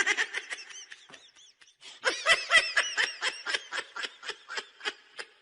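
A voice making quick repeated pulses like snickering laughter, about four to five a second, fainter at first and stronger from about two seconds in.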